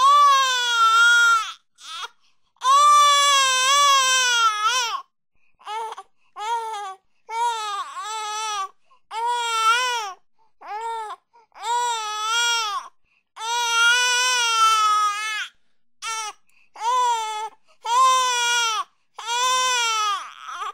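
A baby crying: a long string of wailing cries with short breaks between, some drawn out and some brief, each wavering up and down in pitch.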